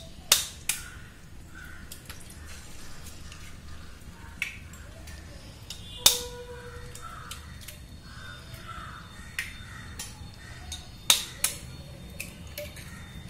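Kitchen knife tapping eggshells to crack eggs open: a scattered series of sharp clicks and knocks, about nine in all, one near the middle louder with a brief metallic ring.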